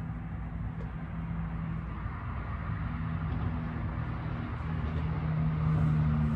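Steady low mechanical hum, a machine drone that grows a little louder and slightly higher near the end.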